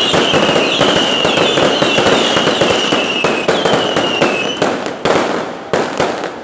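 Fireworks going off: a dense, rapid crackle of bangs with a high, slowly falling whistle over it. Both thin out after about four seconds into a few separate pops, and the sound fades near the end.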